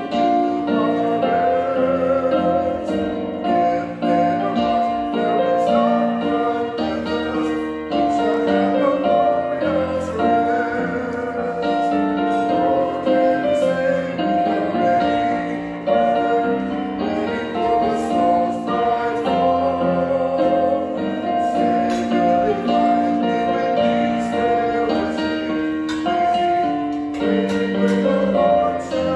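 Congregation singing a hymn with piano accompaniment, in steady phrases of about four seconds each.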